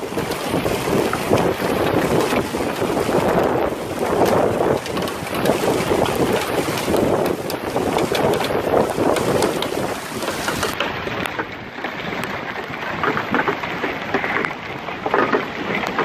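Wind gusting hard across the microphone, surging up and down every second or two, with hail and rain falling through it as many small clicks.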